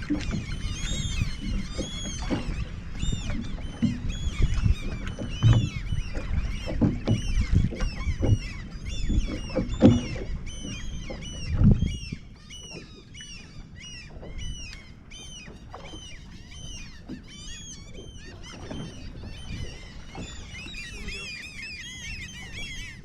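A flock of seabirds diving on a bait ball, calling constantly in many short, overlapping cries. Under them a low rumble with knocks runs for about the first twelve seconds, then drops away.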